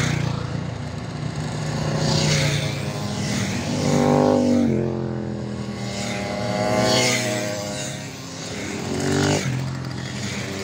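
A column of two-stroke Simson mopeds and small motorcycles passing one after another. Each engine swells as it approaches and drops in pitch as it goes by, with a new one every two to three seconds.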